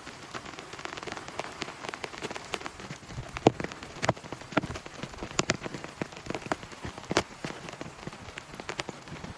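Heavy rain falling steadily, with individual large drops tapping sharply on a surface close to the microphone; a handful of louder drop hits come through the middle of the stretch.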